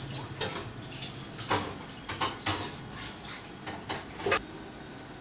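Several light, irregular clicks and knocks, about seven in five seconds with the loudest near the end, over a faint steady hum that fades early on.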